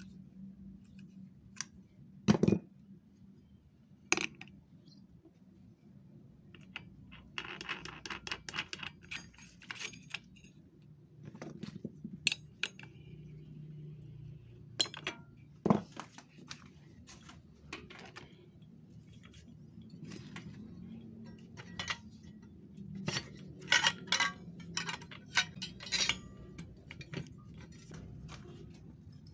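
Scattered metallic clinks and knocks of small metal parts and tools being handled, with a few louder knocks, about two and a half seconds in and near sixteen seconds; no power tool is running.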